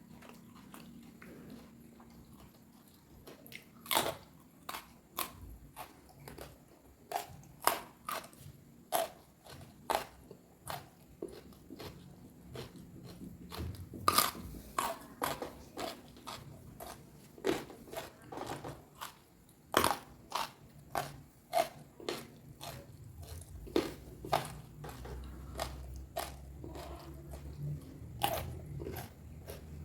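A person chewing crunchy food close to the microphone, with many irregular sharp crunches as they bite and chew.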